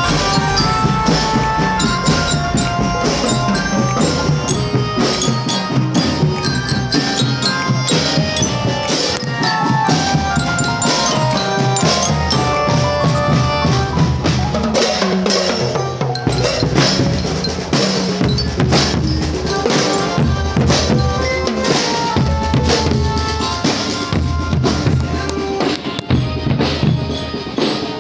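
Loud music with a drum kit beat, bass drum and snare strikes, under a melody of held notes.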